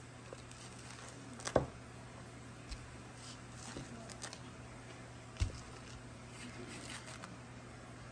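Knife cutting and scraping the thick spongy white pith of a grapefruit, with soft tearing and squishing of the peel. Two sharp clicks stand out, about a second and a half in and again about five and a half seconds in.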